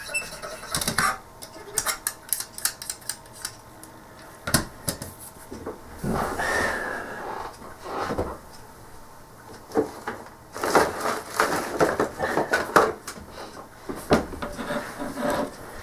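Small hard items clinking and clattering as they are handled and set down on a workbench, in irregular clusters of sharp taps and rattles. There is a brief scraping rustle near the middle, and the busiest clatter comes about two-thirds of the way through.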